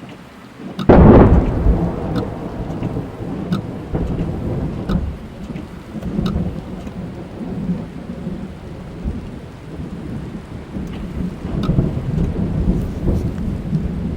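Thunder heard from inside a car in heavy rain: a sudden loud clap about a second in rolls on as a long low rumble, which swells again near the end. Rain hits the car throughout, with scattered sharp drop ticks.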